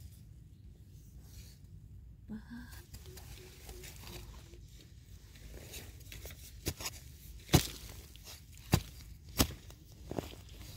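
Termite mushrooms being dug and pried out of the soil: low rustling and scraping, then from about six seconds in a string of sharp crunching snaps and knocks, the loudest a little past the middle.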